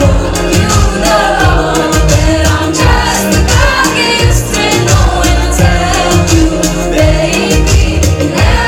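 Live electronic pop song played over a club PA, with sung vocals over a steady low bass beat.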